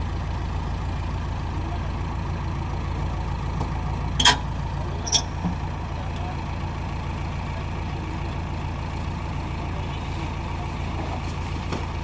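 JCB backhoe loader's diesel engine idling steadily, with two sharp knocks about a second apart some four seconds in.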